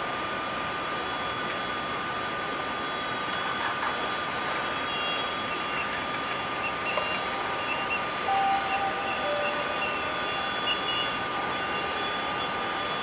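Airport machinery noise: a steady high whine over a hiss, with short beeps of different pitches coming and going in the middle.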